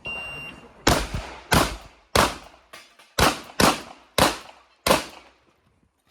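Shot-timer start beep, then a shotgun fired seven times in quick succession, the shots about half a second to a second apart, each with a short echoing tail.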